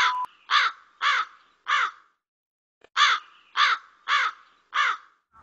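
Harsh cawing bird calls, crow-like, in two runs of four caws with a pause of about a second between the runs. A short steady test-pattern beep sounds under the first caw and cuts off almost at once.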